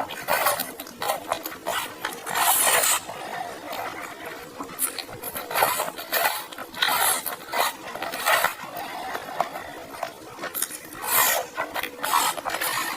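Dishes and utensils being handled, clinking and scraping in irregular bursts, with a longer hissing rustle about two and a half seconds in.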